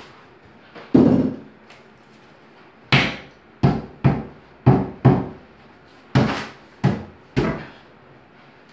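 About nine dull knocks on a stone wall panel, the first on its own and the rest in an uneven run about half a second apart, as the panel is struck to seat it around a bathtub deck.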